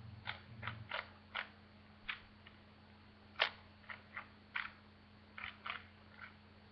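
Plastic speed cube being turned by hand: about a dozen irregular clicks and clacks as its layers turn and snap into place, the loudest about three and a half seconds in.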